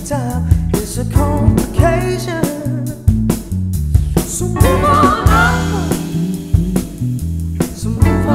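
Swing and soul band playing: vocals carry a melody over electric guitar, bass and a drum kit keeping a steady beat, with a wavering lead line about halfway through.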